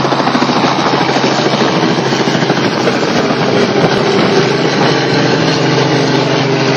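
Small two-bladed light helicopter lifting off and climbing overhead, its rotor and engine making a loud, steady noise.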